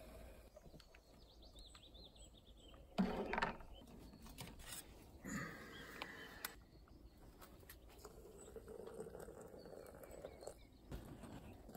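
Camp cooking gear being handled: a clatter about three seconds in as the Jetboil cup is lifted off its burner, a few lighter knocks and clicks, then hot water pouring into a glass French press near the end. Faint bird chirps underneath.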